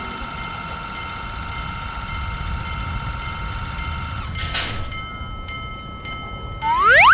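Animated Shinkansen train sound effect: a low rumble under a steady high tone, a short whoosh about four and a half seconds in, then a loud rising whistle-like glide at the very end.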